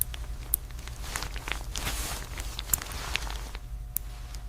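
Footsteps and scattered sharp clicks and taps over a steady low hum.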